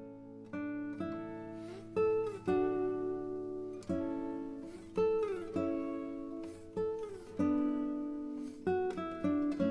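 Background music played on acoustic guitar: plucked notes left to ring, a new note or chord about once a second, a few of them sliding down in pitch.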